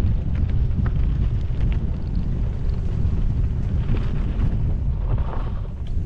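Wind buffeting a GoPro Max 360's microphones during a mountain-bike ride, a steady low rumble, with a few light clicks and rattles over it.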